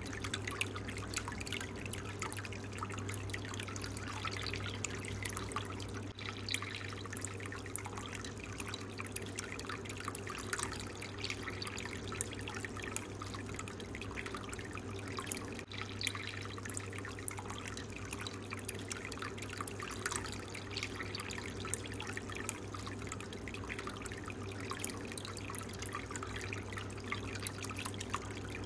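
Water trickling and splashing steadily from the PVC return pipe of a DIY aquarium filter into the tank, over the filter pump's steady low hum.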